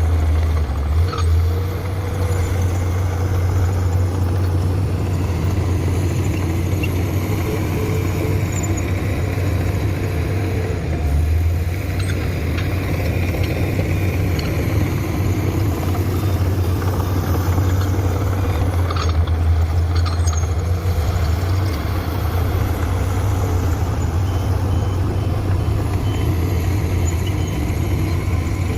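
Diesel engine of a Komatsu PC200 hydraulic excavator running steadily under load while loading, with a few brief knocks.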